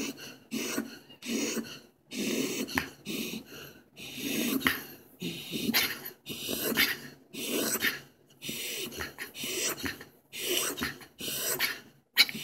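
A dog making sleepy noises: a steady run of short snuffling breaths, about one or two a second, with little whimpers mixed in.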